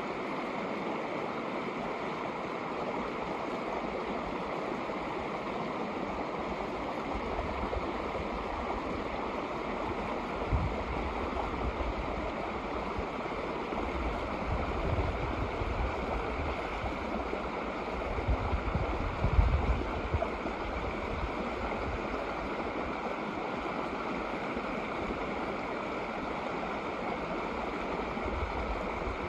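Shallow snowmelt creek running over rocks: a steady, even rush of water, with a few brief low rumbles partway through.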